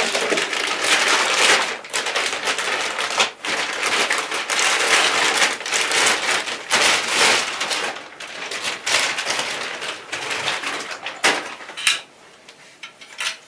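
Clear plastic wrapping crinkling and rustling as it is handled and pulled off a piece of equipment, dying down near the end.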